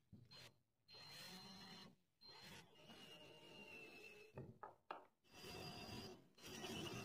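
Cordless drill boring into a pine board, a twist bit and then a flat spade bit cutting the wood with a rasping, scraping sound and a faint motor whine. It goes in several short runs with brief pauses between them.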